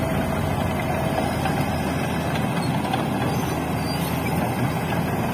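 Diesel engines of a crawler bulldozer and a large mining dump truck running steadily, a dense low drone with no change.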